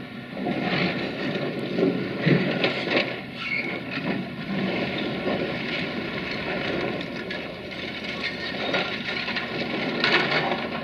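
CASE CX330 excavator demolishing a brick-and-concrete wall: irregular crunching and crashing of breaking masonry and tumbling debris, starting about half a second in, loudest around two seconds in and again near the end as a section of wall comes down, with the machine's engine running beneath.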